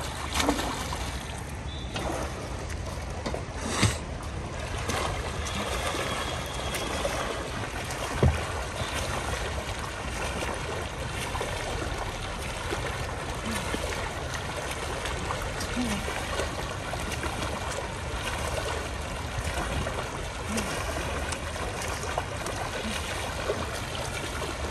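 A backstroke swimmer's arms splashing through pool water over a steady watery hiss, with a couple of sharp knocks about four and eight seconds in.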